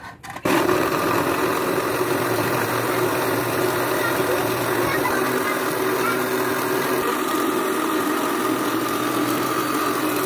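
Electric mixer grinder switching on about half a second in and running steadily at full speed, blending pomegranate arils into juice.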